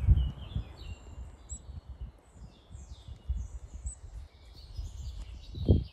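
Small songbirds chirping, many short high chirps in quick succession, over a low rumble that is loudest at the start.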